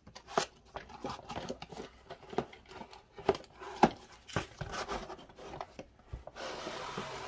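Cardboard box being opened and handled, with a string of short knocks, taps and scrapes as the flaps are pulled open and a plastic cake turntable is worked out of it. Near the end comes a steadier scraping rustle of about a second as the turntable slides out against the cardboard.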